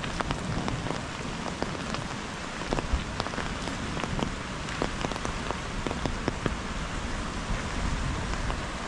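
Steady rain falling, with many separate drops ticking sharply close by over a constant hiss.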